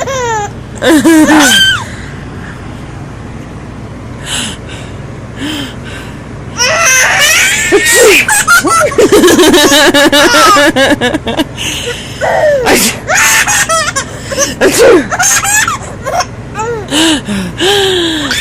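Baby laughing in bursts: a short laugh about a second in, a lull of several seconds, then a long run of laughter from about six and a half seconds in, with more bursts near the end.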